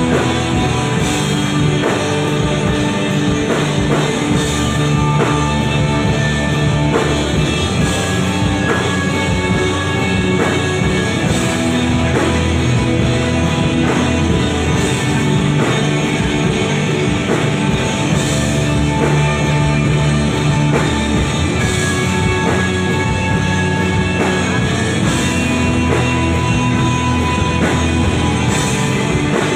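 Rock band playing live on electric guitars, electric bass and drum kit, loud and driving, with cymbal crashes every few seconds.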